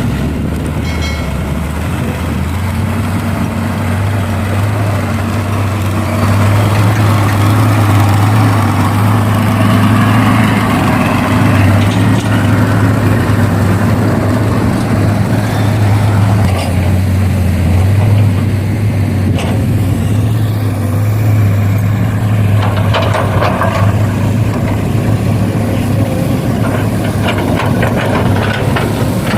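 Heavy vehicle engine running steadily with a low drone, the mechanical noise over it growing a little louder about six seconds in, with some clattering near the end.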